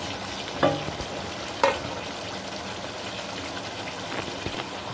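Masala gravy with meat pasinde bubbling and sizzling in an uncovered aluminium pot, a steady hiss with two brief louder sounds about a second apart near the start. This is the bhuna stage, with the masala frying in its own oil as the meat cooks down.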